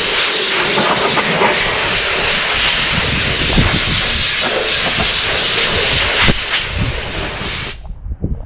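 DA (dual-action) sander running on primer over a car hood: a loud, steady hiss that cuts off suddenly near the end.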